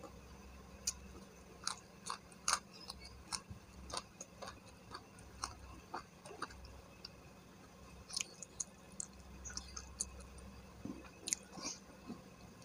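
Close-up mouth sounds of a person chewing a mouthful of fried chicken and rice: irregular wet smacks and clicks. A faint steady low hum runs underneath.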